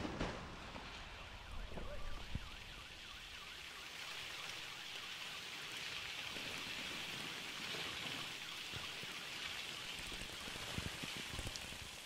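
Exploded paint falling back down like rain: a steady soft patter and hiss of droplets, with a few louder spatters about two seconds in, fading away near the end.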